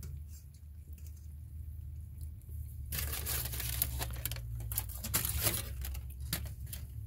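Aluminium foil crinkling loudly as a sheet is handled and laid over a plate of food, starting about three seconds in, over a low steady hum.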